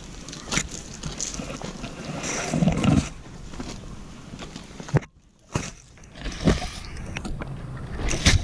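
Rustling with scattered sharp knocks and bumps close to the microphone, briefly cutting out about five seconds in.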